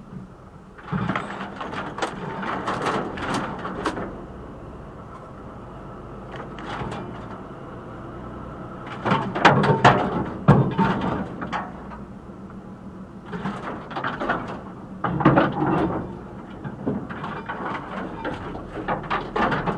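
Tree branches and hedge scraping and knocking against a lorry's cab and roof in repeated bouts of a few seconds each, over the steady running of the truck's engine.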